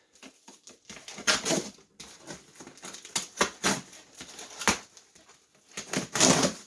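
A cardboard box being opened and its packing material rustled and crinkled by hand, in short irregular bursts.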